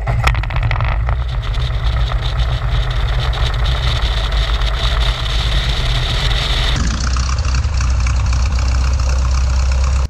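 Piper PA-28's piston engine and propeller running at idle, heard close to the cowling. The sound shifts in character about seven seconds in.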